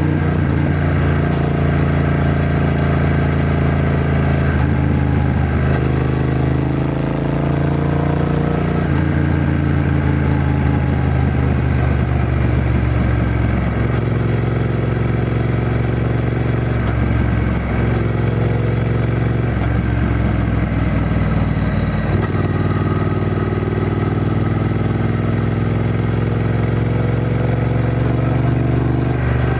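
Triumph Bonneville T120's 1200 cc parallel-twin engine running under way. Its pitch climbs steadily and then falls back several times.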